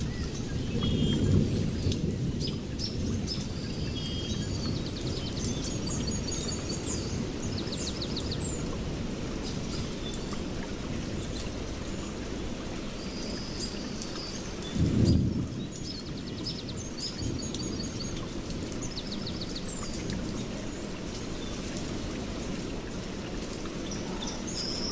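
Birds singing, short chirps and fast twittering trills, over a steady low rumbling background, with a louder rumble lasting about a second around fifteen seconds in.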